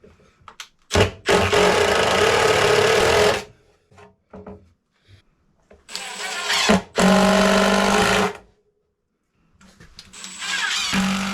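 A handheld power tool's motor running in three bursts of two to three seconds each, with short clicks and knocks in the gaps between.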